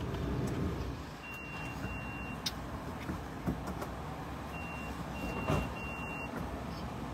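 Low steady rumble of an idling vehicle heard from inside the cabin, with a few short high-pitched beeps in two groups and several sharp clicks.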